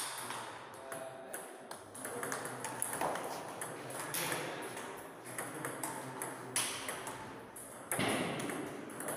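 Table tennis ball clicking off the rackets and bouncing on the table during rallies, a series of sharp irregular ticks.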